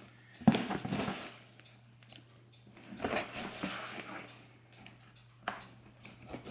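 Box cutter slicing through packing tape and scraping along a cardboard box, in short spells of rustling noise with a sharp click about half a second in and another near the end.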